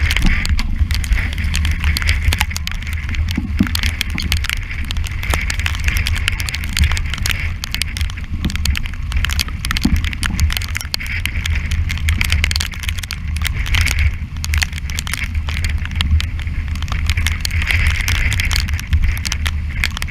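Strong wind buffeting the microphone of a deck-mounted camera on a yacht in heavy weather, a constant low rumble. Over it, the hiss of breaking waves and spray swells and fades, with a crackle of water drops striking the camera.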